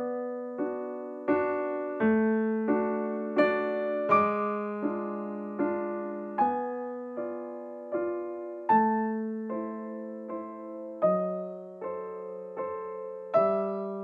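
Background music: slow, gentle solo piano, a new note or chord struck about every two-thirds of a second and left to ring and fade.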